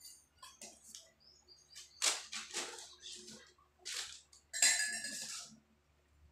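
Silverware being hand-washed with a sponge in a metal basin of soapy water: small clinks of spoons and forks against the basin and each other, mixed with water swishing and scrubbing. The loudest stretches come about two seconds in and again near five seconds.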